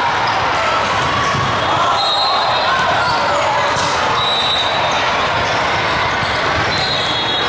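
Volleyball rally in a large, echoing hall full of courts: sharp thuds of the ball being hit and bouncing. Under them runs a steady din of voices and brief high squeaks from play all around.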